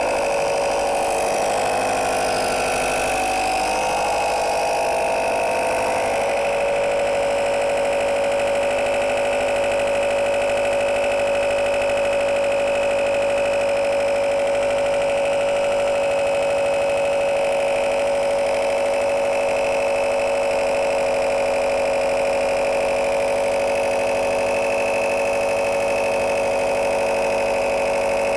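12 V mini tyre-inflator air compressor running steadily while it pumps up a motorbike tyre, with a strong, even mid-pitched tone.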